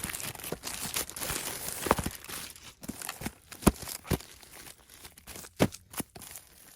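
Toy packaging crinkling and tearing as it is opened, then a series of separate sharp clicks and taps as the pieces are handled.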